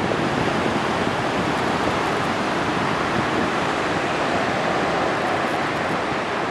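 Atlantic surf: waves breaking and washing ashore in a steady roar of noise, with wind buffeting the microphone.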